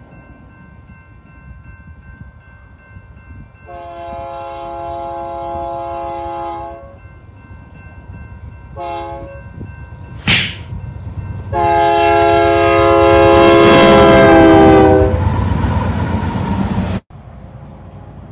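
Union Pacific diesel locomotive's air horn sounding a grade-crossing signal: a long blast, a short blast, then a very loud long blast that drops slightly in pitch at its end, over the rising rumble of the approaching coal train. A brief sharp noise comes about ten seconds in, and the sound cuts off abruptly near the end.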